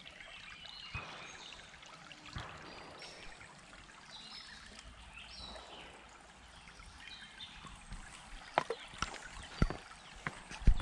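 Shallow stream trickling over rocks in a steady, soft wash of water. About two-thirds of the way in, footsteps on a dirt path start up, a handful of sharp steps.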